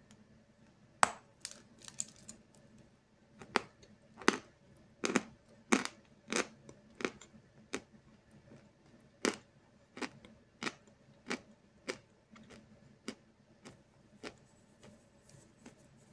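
Crunching of a chunk of edible Snezhok chalk being bitten and chewed: a sharp crack about a second in, then a run of crisp crunches about one and a half a second, growing fainter near the end.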